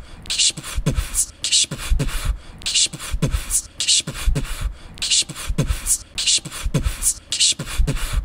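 A steady beat-box style rhythm of a deep kick alternating with a hissing snare, about one of each per second.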